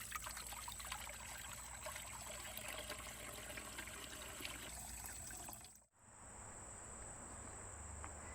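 Water from a small bubbling garden fountain, trickling and splashing, with a steady high insect trill over it. The sound breaks off sharply just before six seconds in, then carries on with less splashing.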